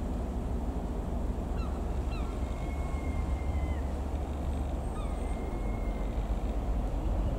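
Cessna 172 Skyhawk's four-cylinder Lycoming piston engine droning steadily overhead, a low rumble. Birds call over it with several short thin whistled notes and two longer held ones, about three and five seconds in.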